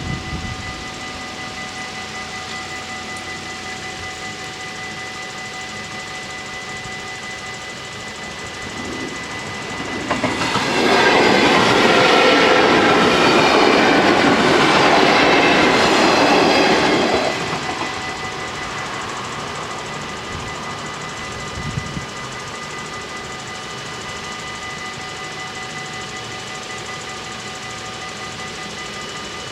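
Bells of a Dutch automatic half-barrier level crossing ringing steadily. About ten seconds in, a train rushes past for some seven seconds and drowns them out. The bells ring on after it has gone.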